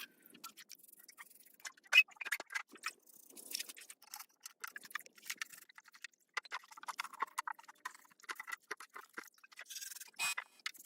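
Scrubbing and scraping on a bare cast iron diesel engine block to clean off old sludge: a busy, irregular run of scratchy strokes and small clicks, with one sharp click about two seconds in.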